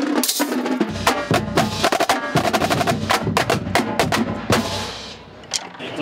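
Marching drumline playing a fast cadence on snare drums and multi-tenor drums, a rapid stream of crisp stick strikes. Deeper drum hits join about a second in, and the playing eases off near the end.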